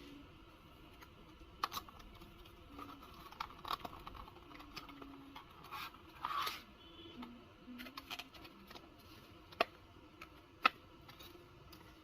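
Light clicks, taps and brief scrapes of small hard plastic and metal parts being handled, as in working on a laptop's case and internals, with two sharper clicks near the end.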